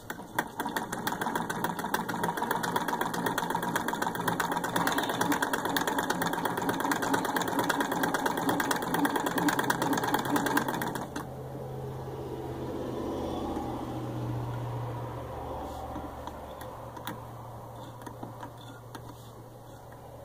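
Serviced antique Willcox & Gibbs hand-crank chain stitch sewing machine stitching through cloth, a rapid, even mechanical clatter that stops abruptly about eleven seconds in. A low hum and a few faint ticks remain afterwards.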